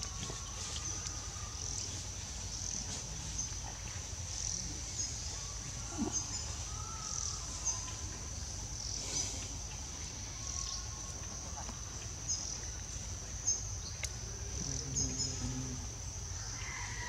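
Steady high-pitched insect drone from the forest undergrowth, pulsing slightly, with a few faint short chirps and small clicks over a low rumble.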